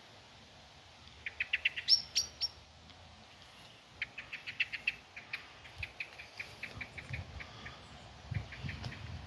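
A songbird singing in short phrases of quick chirps: one rapid run about a second in that jumps higher in pitch at its end, then a longer string of evenly spaced chirps from about four seconds in.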